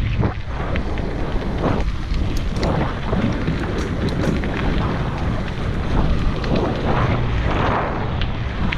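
Wind buffeting the microphone of a camera on a moving mountain bike: loud, gusty rumble with a few small clicks scattered through it.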